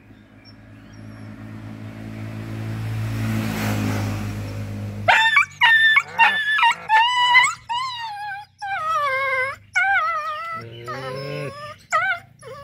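Injured dog whimpering and whining in pain as its leg is bandaged: high, wavering cries, one after another, starting about five seconds in, with a lower moan near the end. Before that, a steady low hum swells and then cuts off suddenly.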